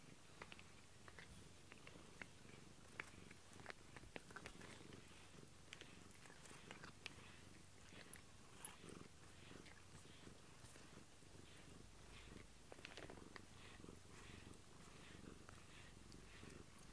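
A cat purring faintly, with soft clicks and scratchy licking sounds as it mouths and rubs its face on a rubber grooming brush.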